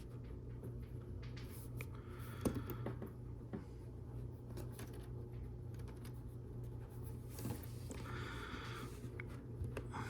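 Plastic LEGO Technic parts being handled and pressed together: scattered light clicks and rubbing, with one sharper click about two and a half seconds in, as a stubborn piece is forced into place. A steady low hum lies underneath.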